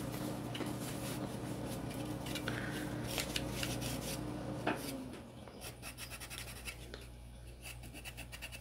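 Microfiber rag rubbing and scratching over the polymer frame of a Glock 19X pistol as the factory preservative oil is wiped off, with small clicks and rustles as the frame is handled. A single knock comes about halfway through, when a low steady hum cuts off, and the rubbing goes on more quietly afterwards.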